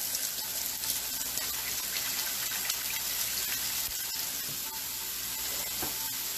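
Steak sizzling in a hot pan on high heat, with a kitchen tap running as hands are washed: a steady hiss throughout.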